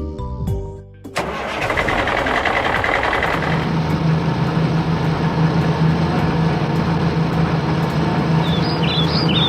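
A vehicle engine starting about a second in, then running steadily with a low hum. Bird chirps come in near the end.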